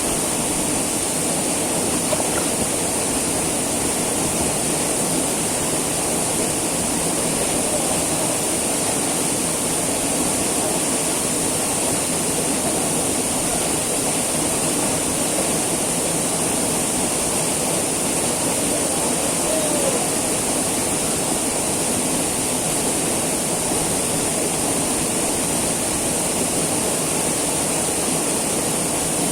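Small waterfall pouring steadily: a constant rush of falling water with no change in level.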